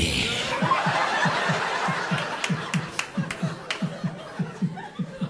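Live audience laughing at a stand-up comedy show. A loud burst of crowd laughter dies away over a few seconds, with an even run of laughs at about four a second going on through it.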